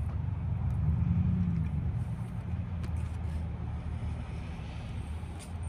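Low, steady motor-vehicle rumble that swells briefly about a second in, with a few faint ticks.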